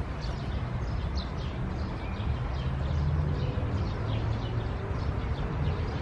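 Small birds chirping in the background: many short, high chirps over a steady low rumble.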